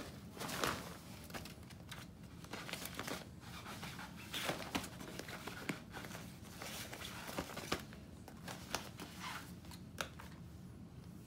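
Light rustling and crinkling with scattered sharp taps and clicks, as of small items being handled and moved about.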